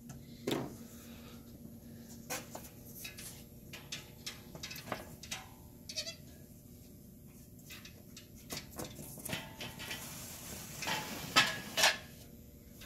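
Pegboard panel being worked into the slots of metal gondola shelving uprights: scattered knocks and scrapes with a brief squeak, the loudest knocks near the end.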